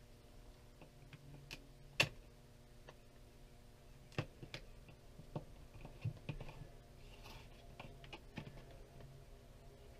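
Scattered light clicks and taps of fingers pressing and smoothing a peel-and-stick plastic mosaic tile sheet onto a wall, with one sharper click about two seconds in, over a faint steady hum.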